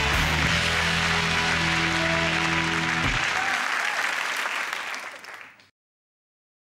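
Studio audience applauding over the closing theme music. The music ends on a held chord that cuts off about three seconds in, and the applause fades out over the next two and a half seconds.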